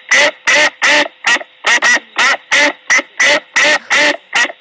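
Duck-like quacking: a rapid, even series of short quacks, about three a second, all alike.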